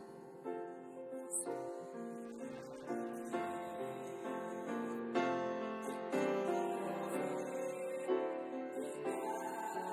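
A slow song played on a grand piano, with a man singing in Swedish.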